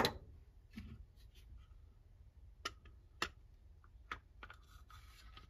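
Scattered light clicks and taps of a steel socket and extension on a cordless drill being handled and fitted onto a mounting screw inside a plastic old-work electrical box, with the sharpest click right at the start.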